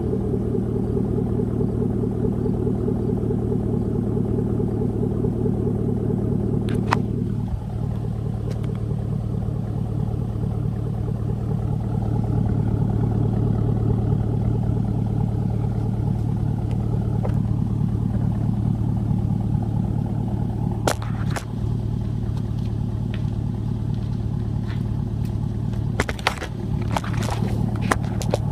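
Chevrolet Silverado's 4.8-litre Vortec V8 idling steadily through a straight pipe that replaces the muffler (a muffler delete). The idle settles slightly lower about seven seconds in, and a few sharp clicks come through near the end.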